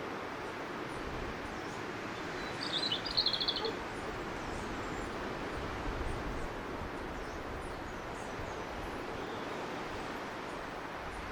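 Robin singing one short, fast phrase of high notes about three seconds in. Steady background noise and faint, scattered high chirps run under it.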